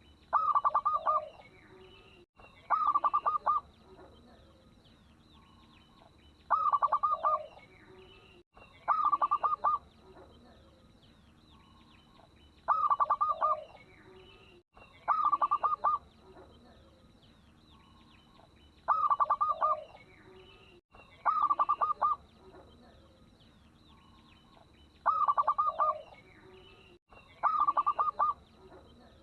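Zebra dove (perkutut) cooing in short phrases of rapid staccato notes, each about a second long. The phrases come in pairs a couple of seconds apart, and the pair repeats about every six seconds. A faint steady high whine runs underneath.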